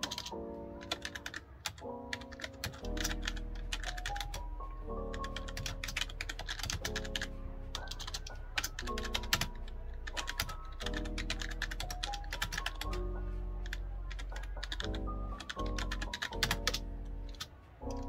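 Fast typing on a backlit computer keyboard: quick runs of key clicks with short pauses between them. Background music with held notes plays underneath.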